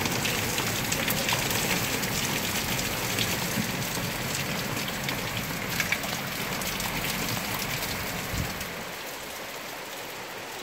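Heavy thunderstorm rain pouring down steadily, with many sharp close raindrop hits. It becomes a little quieter about eight seconds in.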